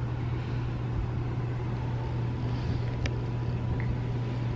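Steady low background hum, with a single faint click about three seconds in.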